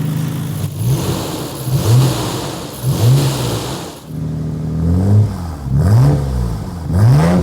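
Nissan Skyline R33 GT-R's RB26DETT twin-turbo straight-six being revved in quick throttle blips, the pitch rising and falling about once a second with a short break about four seconds in. It is running on freshly fitted HKS Super Fire Racing Coil Pro ignition coils.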